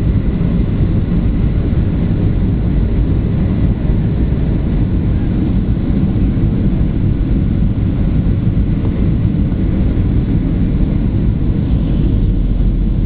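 Steady low cabin rumble inside a Boeing 737-800 airliner in descent: the CFM56 turbofan engines and the airflow over the fuselage, heard through the cabin wall.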